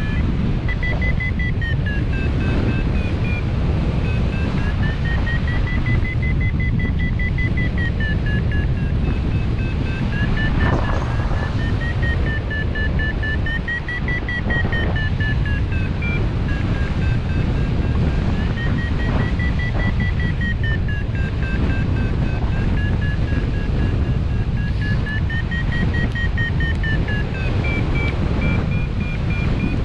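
Hang-gliding variometer beeping rapidly, its pitch rising and falling in a slow cycle about every six seconds as the climb rate changes: the glider is climbing in a thermal. Steady wind noise rushes on the microphone underneath.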